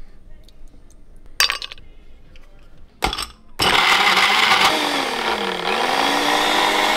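A countertop blender with a glass jug starts about halfway through and runs loud and steady, blending strawberries and ice cubes; its motor pitch sags under the load and then climbs back. Before it starts there are two sharp knocks.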